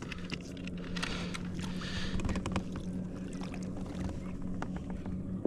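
Spinning fishing reel being cranked to bring in a hooked croaker: a steady low whir with many small irregular clicks.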